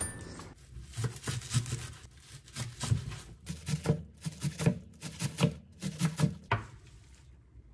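Chef's knife chopping garlic chives finely on a wooden cutting board: quick repeated knocks of the blade against the wood, about four a second, stopping near the end.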